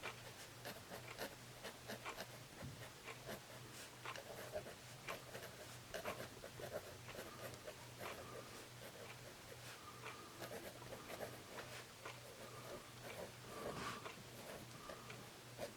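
Pentel Graph Gear 500 mechanical pencil with 0.7 mm lead writing on paper: faint, quick scratches of the lead as words are written.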